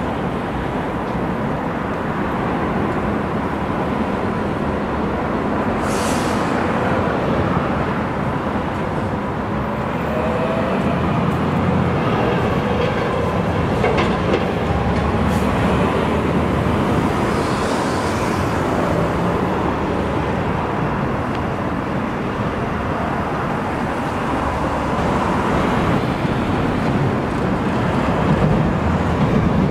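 Steady urban road traffic, cars and trucks passing close by, mixed with electric trains running across the railway bridge overhead.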